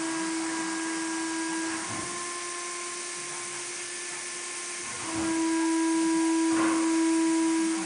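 Truck tyre changer's motor running with a steady whine. The whine weakens about two seconds in and comes back louder about five seconds in, while the machine's arm works the tyre.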